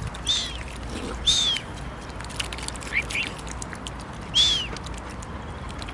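Birds calling: three loud, scratchy calls, each rising then falling in pitch, with two short rising chirps between them, over a scatter of small clicks.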